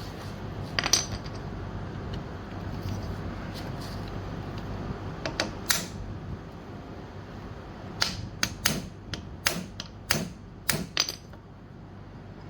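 Metal tools clinking, then a run of about seven sharp hammer blows on a hand impact driver, trying to break loose a seized screw that is stripping out.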